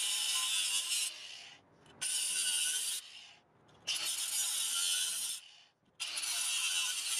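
Angle grinder with a cut-off disc cutting slits into an aluminized steel exhaust pipe, in four bursts of about a second each with short pauses between them.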